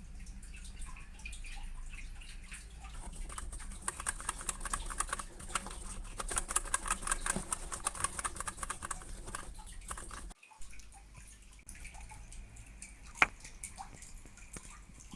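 Typing on a Redragon Draconic K530 mechanical keyboard: rapid key clicks that build into a fast flurry, cut off abruptly about ten seconds in, then scattered single keystrokes with one louder clack near the end.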